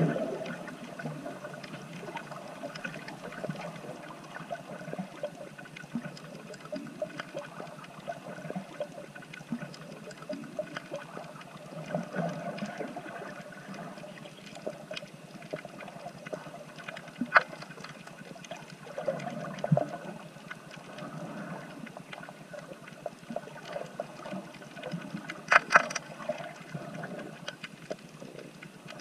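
Underwater sound of water moving around the camera, a steady rushing, sloshing noise. A few sharp clicks and knocks stand out in the second half.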